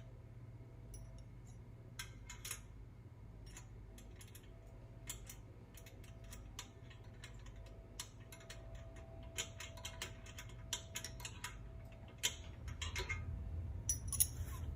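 Hand tools working the nuts on the pedal's mounting bolts: scattered light clicks and metallic clinks, coming in quicker runs a little past the middle and near the end.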